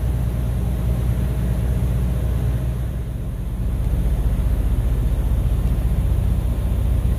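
Truck diesel engine idling: a steady low rumble that gets a little louder about halfway through.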